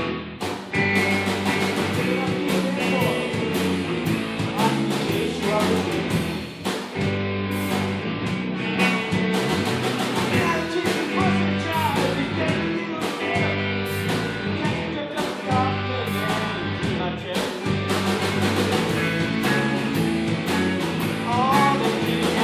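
Live rock band playing a shuffle: drum kit, electric bass and electric guitars.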